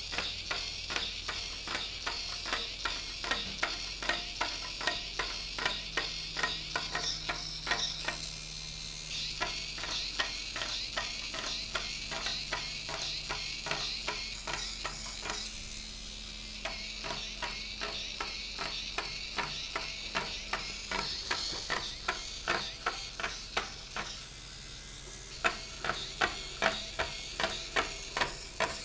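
Hacked Hexbug Spider robot walking: its small gear motor whirring and its plastic legs and gears clicking a few times a second. The clicking pauses briefly a few times as it stops and changes direction.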